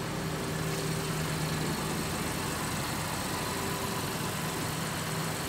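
2017 Acura MDX's 3.5-litre J35Y5 V6 idling steadily.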